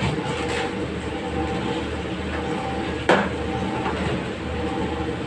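Steady hum of a kitchen range, with one sharp clank of metal kitchenware about three seconds in.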